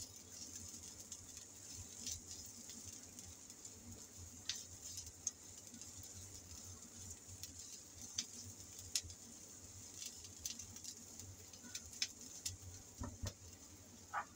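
Diced onion sizzling faintly in hot oil in a nonstick frying pan, a steady hiss with scattered crackles and pops of spattering oil.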